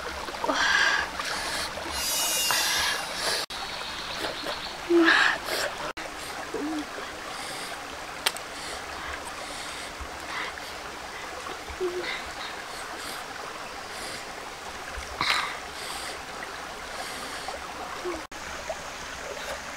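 Boiled freshwater mussel shells clicking and scraping against each other now and then as they are picked up and pulled open, over a steady rush of flowing stream water.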